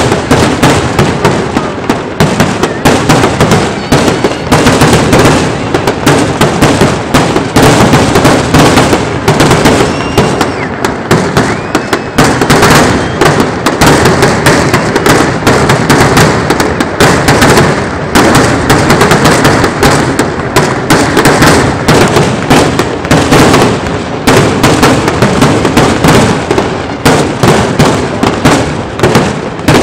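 Fireworks grand finale: aerial shells bursting in a dense, unbroken barrage, several loud reports a second with no pauses between them.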